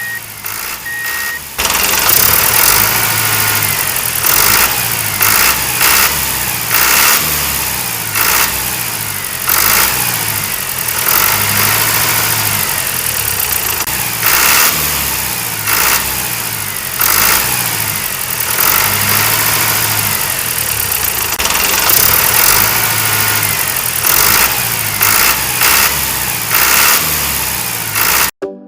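A small engine running rough and loud, with a pulsing low throb and irregular knocks. A repeated short beeping comes at the start, before the engine sound swells up about a second and a half in.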